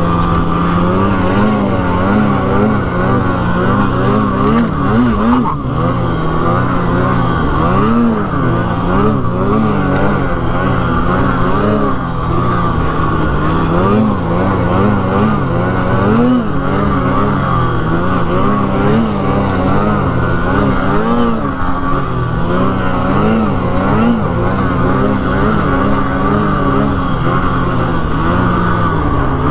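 Polaris Pro RMK snowmobile's two-stroke engine running hard, its pitch rising and falling again and again as the throttle is worked through deep snow.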